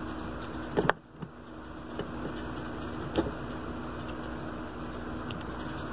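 Steady electrical hum with a few light ticks and taps, the sharpest a single click about a second in.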